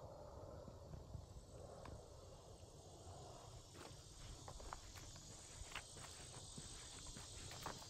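Faint footsteps crunching on a dirt woodland trail and through leafy undergrowth, the steps coming as a run of short crunches from about halfway through. A steady high insect chorus drones behind them.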